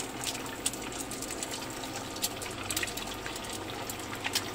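Eggs frying in hot oil in a nonstick pan: steady sizzling with frequent sharp spits and pops.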